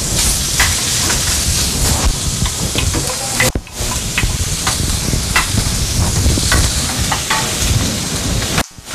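Turkey sausage and diced onion sizzling in a hot frying pan, with scattered clicks and scrapes of a wooden spoon against the pan as the onion is stirred in.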